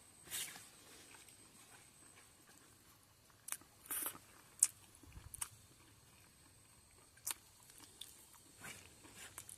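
Someone biting and chewing food close to the microphone, with scattered short crunches and clicks, the sharpest about four and a half seconds in, over a faint steady high tone.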